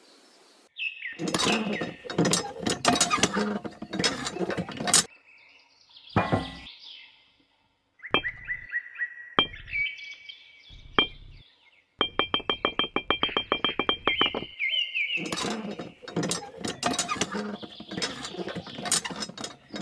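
A chopped-up soundtrack of short music snippets and cartoon-style sound effects: high chirping tones and clinks, broken by brief gaps. A rapid run of even clicks, about ten a second, lasts a couple of seconds midway.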